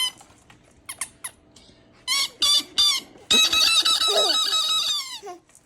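High-pitched squawking noises made to amuse a baby: a few faint chirps, then three short squawks and one long held squawk of about two seconds that drops in pitch as it ends.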